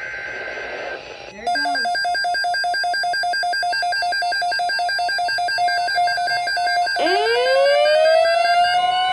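Midland NOAA weather radio sounding its alert for a severe thunderstorm watch. After a short hissy tone, a rapid, evenly pulsing two-tone beeping starts about a second and a half in. About seven seconds in, a siren-like tone glides up in pitch and levels off.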